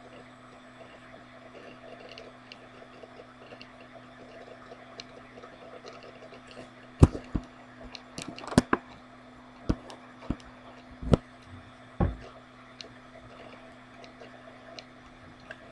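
Several sharp knocks or clicks, about eight of them close together in the middle stretch, over a steady low hum.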